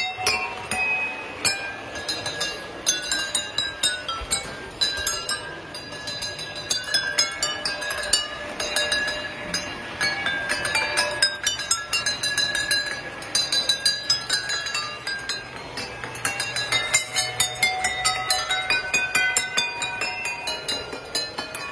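Water-tuned wine glasses struck one after another by a striker on a passing model train, ringing out a quick melody of clinking notes at changing pitches.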